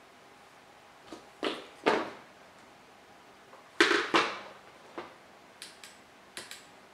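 Hard plastic knocks and clatter as an RC transmitter is handled and set down on a wooden floor, the loudest pair about four seconds in, followed by a few small, sharp clicks from its toggle switches near the end.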